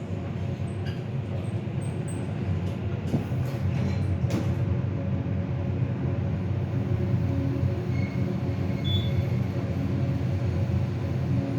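Elevator car travelling in its shaft: a steady low hum and rumble, with a few faint clicks about three to four seconds in.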